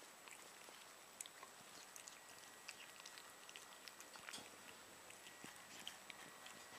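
Faint chewing and scattered small clicks of cats eating chunky cat food from a bowl.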